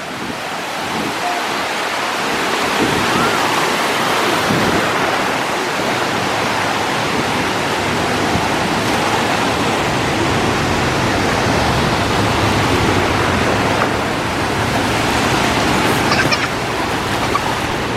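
Steady rushing water noise that builds over the first couple of seconds, then holds even.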